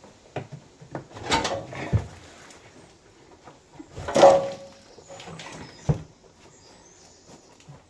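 Clunks, scrapes and a squeak as a Land Rover Defender fuel tank is handled and manoeuvred into the chassis from above. The loudest scrape comes about four seconds in, and a sharp knock follows about two seconds later.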